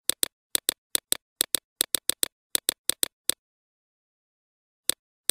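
Mouse-click sound effect of a screen recording: sharp, alike clicks in quick pairs, about eight pairs in the first three and a half seconds, then two single clicks near the end, with dead silence between.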